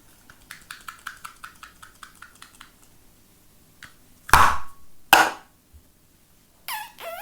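Play-Doh and its plastic pots and tools being handled: a run of light clicks, then two sharp knocks. A wavering high-pitched call begins near the end.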